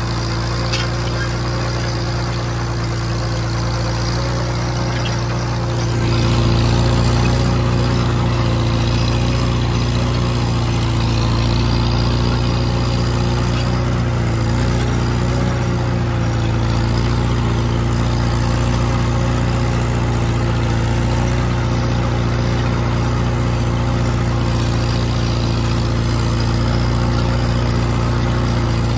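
Farmall H tractor's four-cylinder engine running steadily under load while pulling a disk harrow; it gets a little louder about six seconds in.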